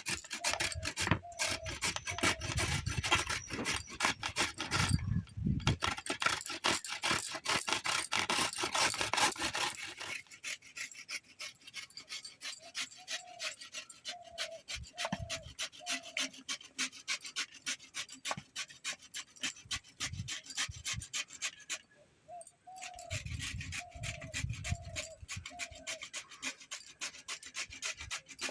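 Raw green papaya being peeled with a hand peeler blade: fast, rhythmic rasping strokes scraping across the skin. The strokes are louder in the first third and again near the end, and lighter in between.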